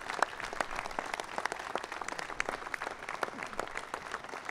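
Crowd applauding: many hands clapping at once in a dense, steady patter.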